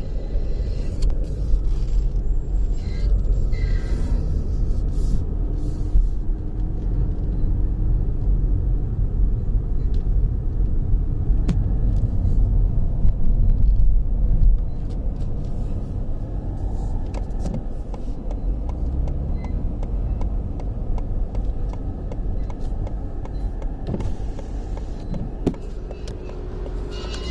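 A car running, a steady low rumble that drops in level about halfway through, with a faint high squeal now and then.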